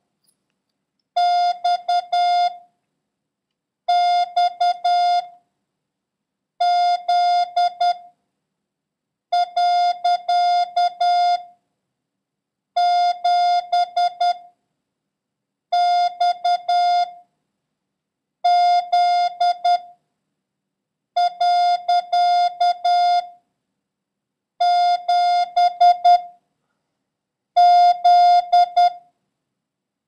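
Morse code practice tone: one steady electronic beep keyed in dots and dashes, sending single characters (X, Z, 7 and the period) one at a time with a pause of about a second between each, for copying by ear.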